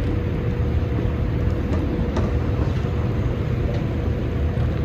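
Steady low rumble of road traffic with a faint constant hum running through it.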